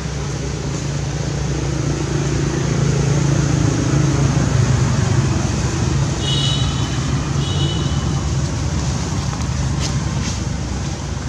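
Motor vehicle engine running nearby as traffic goes by, a low hum that swells about four to five seconds in and then eases off. Two short high chirps sound about six and seven and a half seconds in.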